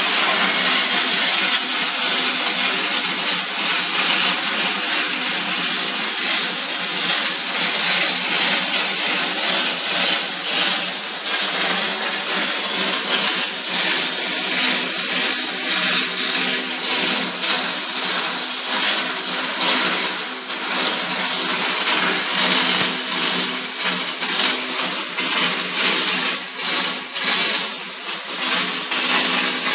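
Karcher DE 4002 steam cleaner jetting steam through its hand nozzle and small brush onto bathroom floor tiles, a loud steady hiss, with the steam output turned up.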